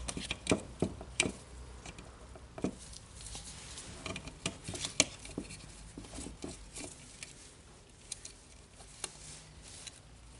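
Irregular light clicks and taps of small plastic parts being handled and fitted into a Makita DDF456 cordless drill's plastic housing as the LED light is put in place.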